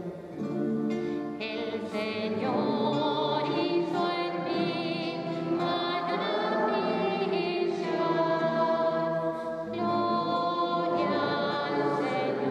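Sung refrain of the responsorial psalm: slow singing with long held notes that waver with vibrato.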